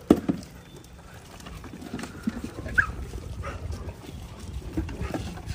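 A pack of street dogs crowding around food bowls, with short whines and a brief rising yelp amid scuffling. A sharp knock just after the start, as a plastic feeding bowl is set down on the ground.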